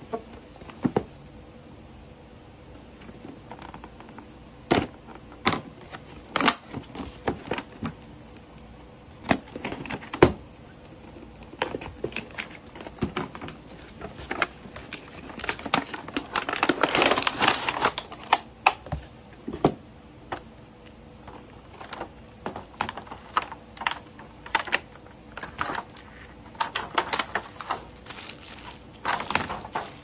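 A cardboard box being opened and unpacked by hand: scattered taps, knocks and scrapes of cardboard and of parts set down on a table, with a couple of seconds of denser rustling, like plastic packaging, a little past halfway.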